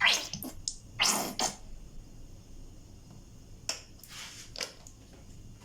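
Plastic squeeze bottle of dish soap squirted in a few short, sputtering spurts, the longest about a second in.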